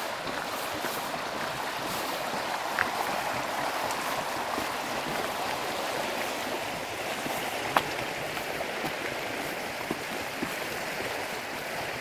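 The small river Geul flowing steadily, rippling over shallows. Two brief sharp clicks break through, about three seconds in and again about eight seconds in.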